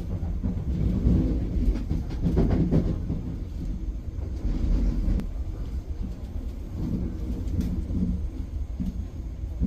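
Inside a Korail Class 351000 electric train in motion: a steady low rumble of the running gear on the rails, with a spell of clicks and clatter about two to three seconds in.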